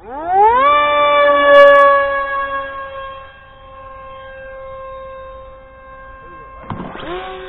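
Electric motor of a radio-controlled model plane spooling up with a rising whine, then holding a steady high whine, loudest for the first couple of seconds. Near the end a short rush of noise comes, and a second motor whine rises to a lower, steady pitch.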